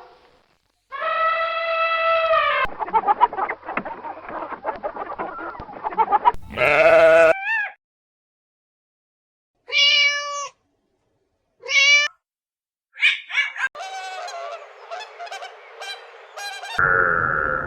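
A string of short animal calls, bleat- or meow-like, each about a second long, with scratchy rustling and clicking between some of them and sudden silent gaps in between.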